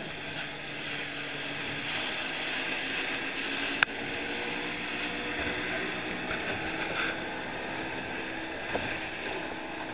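Twin outboard motors driving a rigid inflatable boat at speed: a steady engine drone under a rush of wind and water. A single sharp knock sounds about four seconds in.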